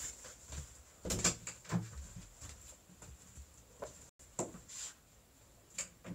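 A few scattered knocks and thuds from someone moving about off-camera, over a faint steady high-pitched whine.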